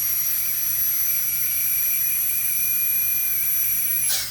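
Air-driven dental handpiece (air turbine drill) running free at full speed, about 70 decibels: a loud, steady high-pitched whine over a hiss of air. Near the end the air is cut and the whine starts to fall in pitch as the turbine winds down.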